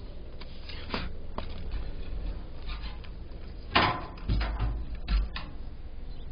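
Clicks and knocks of hard parts being handled as a fuel pump module and its lock ring are fitted into the fuel tank. A few light clicks come first, then the loudest knock about four seconds in, followed by several more.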